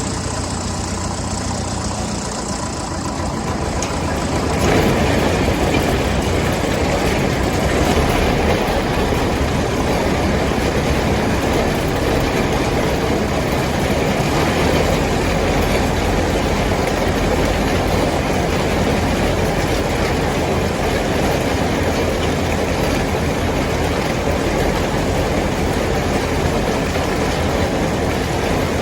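Farm tractor engine running steadily under way; about five seconds in it grows louder and holds there.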